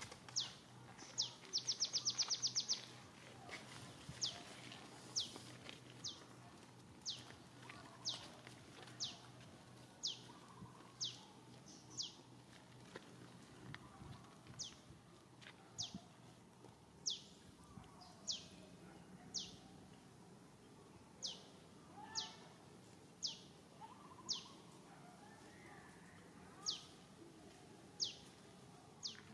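Short high-pitched chirps, each falling quickly in pitch, repeated about once a second, with a brief rapid trill of many fast notes near the start.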